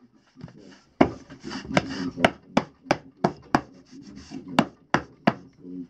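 A wooden hand tamper knocking and scraping hemp-lime mix in a wooden brick mould: a run of sharp knocks, about three a second, with a short pause a little past the middle.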